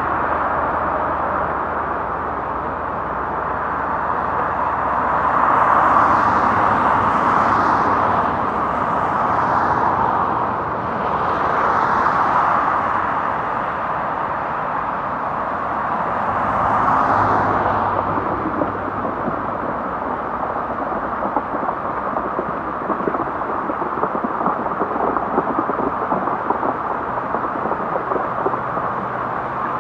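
Steady rain, with vehicles swishing past on the wet road: tyre hiss swells and fades four times in the first twenty seconds. Later the patter of drops comes through more clearly.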